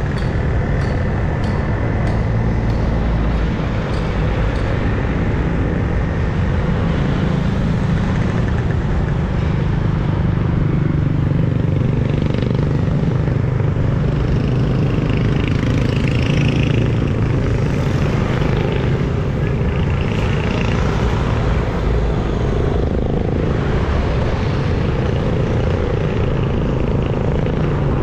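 Highway traffic passing close by: motorcycles, motorcycle tricycles and cars going past, over a steady, loud road rumble.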